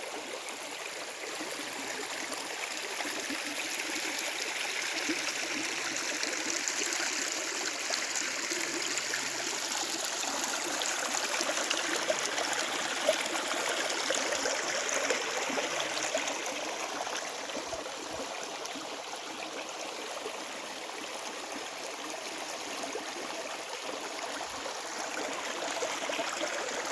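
Running water of a stream, a continuous rushing and trickling that slowly grows louder, eases off and swells again near the end.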